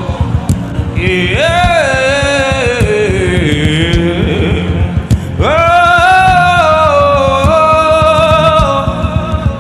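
A male voice singing two long, drawn-out phrases in worship music, the first falling slowly in pitch, over a steady instrumental backing with a regular beat.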